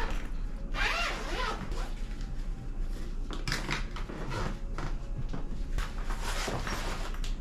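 Zip of a fabric carry bag being pulled open in several pulls, with the bag's fabric rustling as it is opened.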